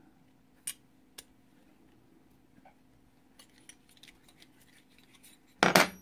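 Light metal clicks of a combination wrench working the adjustment bolt on a Dillon XL650 powder measure bar, a few scattered ticks, then one louder, brief metal clatter near the end.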